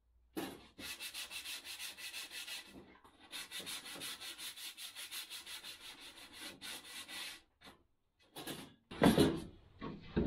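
A wooden board being hand-sanded along its edge: quick back-and-forth rasping strokes, about five a second, with a short break about three seconds in. Near the end, a few loud knocks of wood on wood.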